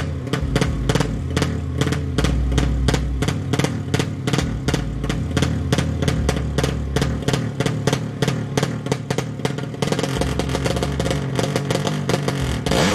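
Music with a fast, steady beat plays loudly over a 200cc drag-race motorcycle engine. From about ten seconds in the engine is heard more clearly, and near the end it is revved, rising in pitch.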